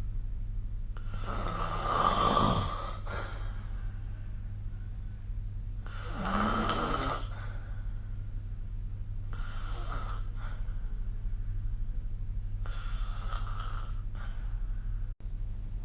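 A sleeping person snoring, four snores about three to four seconds apart, the first two the loudest, over a steady low hum.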